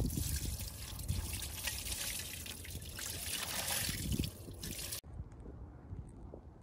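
Water poured from a bucket splashing over a tyre and alloy wheel onto asphalt, rinsing the wheel. The splashing cuts off suddenly about five seconds in, leaving faint outdoor background.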